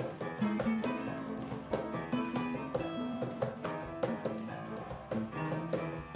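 Slow blues played live on electric guitar, with a cajón keeping a steady beat.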